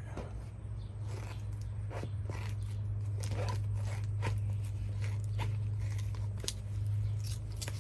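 A steady low hum with scattered faint clicks and crinkles of materials being handled.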